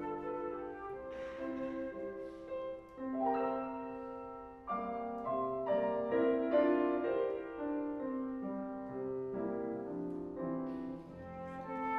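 Flute and grand piano playing classical chamber music together, with held flute notes over the piano's accompaniment.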